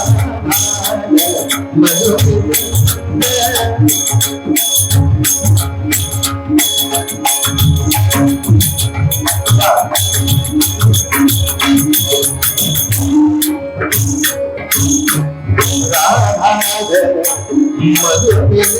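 Devotional kirtan music. Jingling hand percussion keeps a quick steady beat over drum strokes and held, organ-like sustained notes, and a singing voice comes in near the end.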